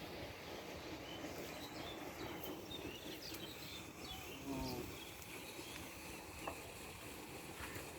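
Faint outdoor ambience by the water: a steady low rush of water and wind, with scattered high chirps, a short pitched call about halfway through and a single click a little later.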